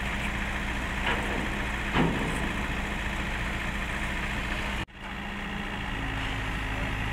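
Kobelco SK50 mini excavator's diesel engine idling steadily, with two short knocks about one and two seconds in. The sound drops out for an instant just before five seconds, then the idle carries on.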